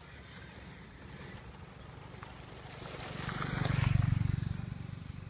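A low rumble that swells to its loudest about four seconds in and then eases off, with water sloshing and splashing as a hand scoop net is worked through shallow water.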